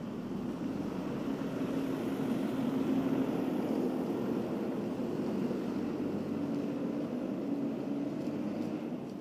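City street traffic: a steady hum of vehicle engines and tyres on the road alongside, swelling a couple of seconds in and easing near the end.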